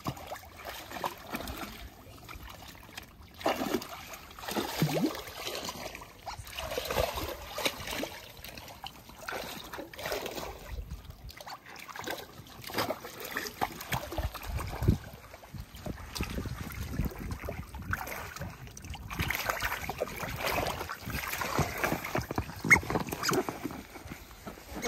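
Two pet otters playing in a pool: irregular water splashing and sloshing, with short otter calls now and then.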